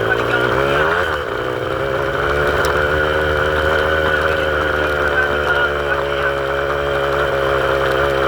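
Farm motorbike engine running steadily, its pitch dipping and rising briefly about a second in.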